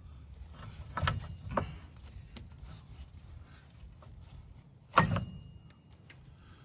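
Knocks and clunks from a rubber track being worked by hand over the tensioner wheel of a Vermeer SC48TX stump grinder: two close together about a second in, and a louder, sharper one about five seconds in.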